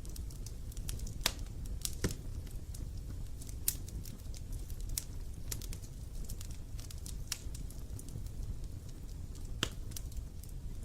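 Campfire burning with irregular sharp crackles and pops of wood over a low steady rumble of the flames, with a few louder pops about a second in, around two seconds and near the end.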